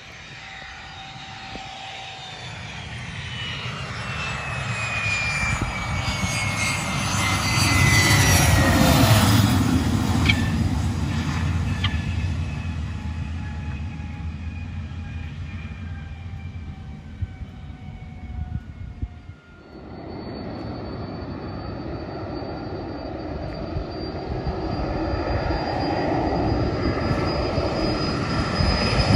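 Private jets' turbine engines. A landing jet passes with a high whine falling in pitch over a low rumble, loudest about nine seconds in. After a sudden cut, another jet's engines run at takeoff power, a steady high whine with the rumble growing louder toward the end as it starts its takeoff run.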